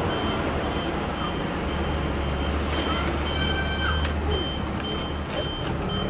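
Vehicle reversing alarm beeping repeatedly in short, evenly pitched high beeps, over the low hum of an idling engine and street noise.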